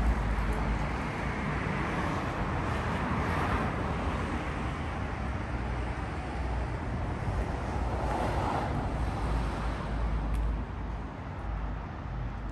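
Street traffic: cars passing on a city street over a steady low rumble, with one car swelling by about three seconds in and another about eight seconds in.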